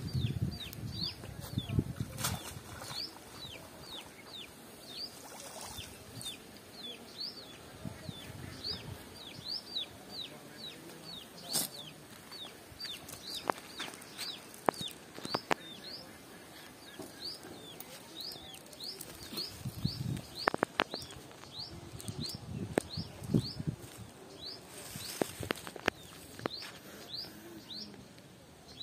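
A bird calling a short, high, falling chirp over and over, about one to two a second, with scattered knocks and rustles.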